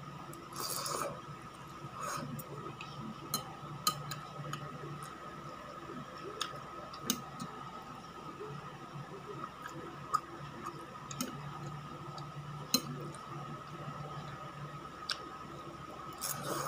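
Eating sounds: noodles slurped into the mouth about half a second in and again near the end, with scattered short clicks and smacks of chewing and metal chopsticks between, over a faint steady hum.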